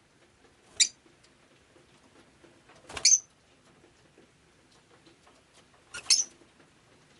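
Rosy-faced lovebird giving three short, sharp, high-pitched calls a few seconds apart.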